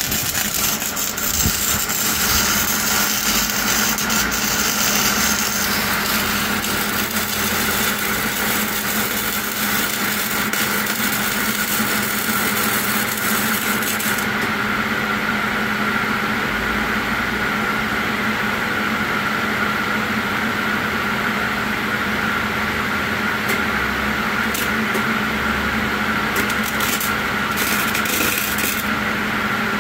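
Electric arc welding: the steady crackle and sizzle of the arc as a bead is run on steel plate, with a steady hum underneath.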